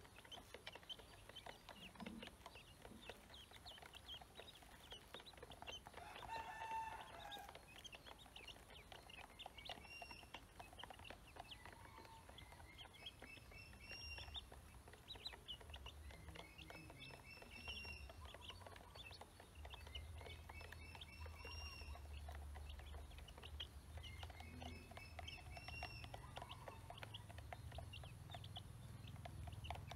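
A brood of ducklings peeping softly and continually while they feed. A louder fowl call comes about seven seconds in, and runs of short chirps recur through the middle.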